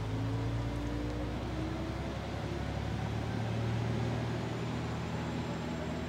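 Isumi 350 diesel railcar pulling away under power, its engine's low drone steady throughout and a pitched whine rising over the first two or three seconds as it gathers speed.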